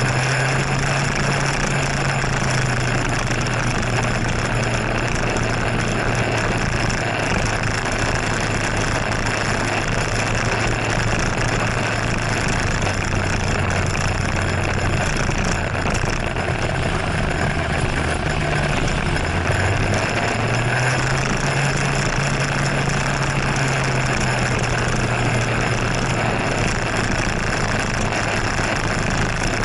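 Scooter engine running under way, its low hum rising in pitch with throttle at the start and again about two-thirds through, then easing back each time. A steady rush of wind and wet-road noise runs underneath.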